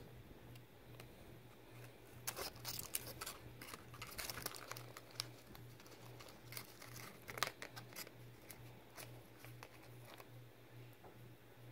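Foil wrapper of a chocolate candy egg crinkling as it is handled, in quick runs of sharp crackles for several seconds, thinning to a few faint rustles near the end.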